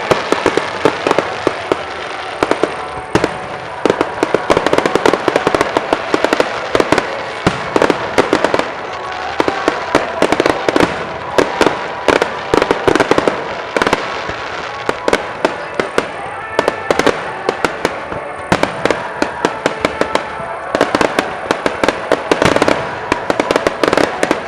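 Fireworks display with shells bursting in rapid, dense succession: a continuous barrage of sharp bangs and crackles over music playing with the show. The bursts stop near the end.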